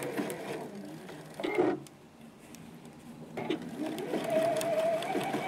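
Electric sewing machine stitching a blind hem, the motor and needle running, pausing for about a second and a half near the middle, then running again with a steady motor whine.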